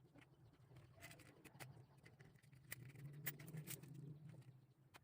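Faint scattered clicks and taps as a metal hook is fitted onto a hard fishing lure, over a faint low hum.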